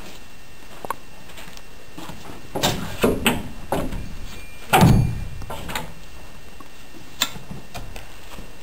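An axe being handled against a wooden plank wall: a cluster of knocks and scrapes, then one heavier thud about five seconds in, with a couple of lighter clicks before and after.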